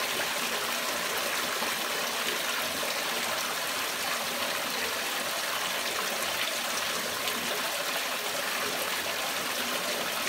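Water pouring from the perforated inlet pipe of a homemade fleece filter onto the fleece, running and splashing steadily.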